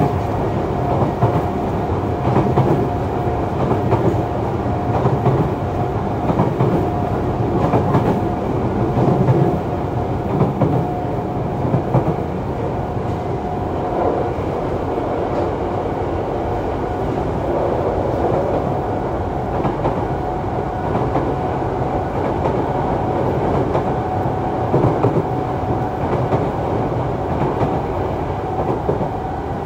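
Yokohama Municipal Subway 3000A-series car (Mitsubishi GTO-VVVF drive) running at steady speed, heard from inside the car. Wheel and track rumble with clicks over rail joints, and a steady high hum held through most of it.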